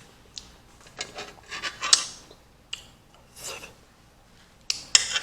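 Close-up mouth sounds of eating kiwi fruit: a run of short wet chewing and slurping noises, and sharp clicks near the end.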